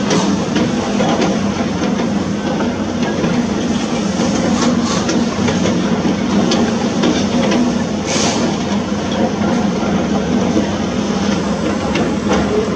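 Heavy construction machinery running: a steady diesel engine drone with scattered knocks and clanks, and a brief hiss about eight seconds in.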